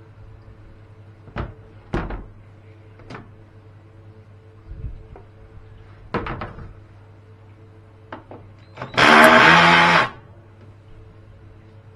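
Scattered knocks and clicks of hardware being handled, then a small electric motor runs once for about a second near the end, the loudest sound here.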